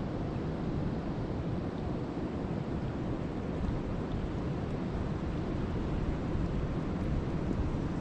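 Steady rain falling on the open water of a lake: an even, unbroken rushing noise that stays at one level.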